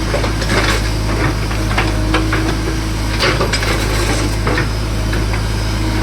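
JCB excavator's diesel engine running steadily, with frequent sharp knocks and clatter of metal and hard material, about one to three a second.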